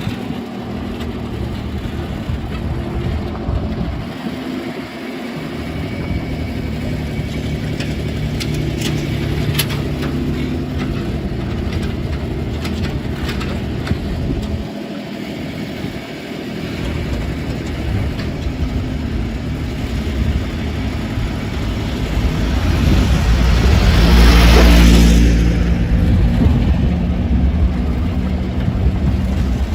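Heavy machinery's diesel engine running steadily, swelling to its loudest about three-quarters of the way through before easing back, with a few light clanks along the way.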